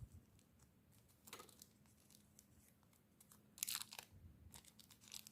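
Faint crinkling and rustling of plastic parts being handled: a new clock-spring flat ribbon cable being fitted into its plastic reel. There is a short rustle about a second in and a slightly louder cluster near the four-second mark.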